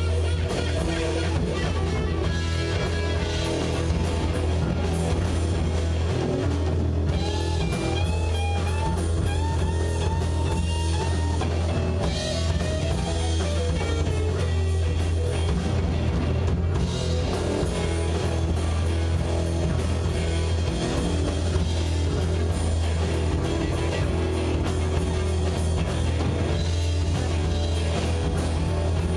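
Live rock band playing on electric guitars, bass guitar and drum kit, with a lead guitar bending notes in short phrases about a third of the way in.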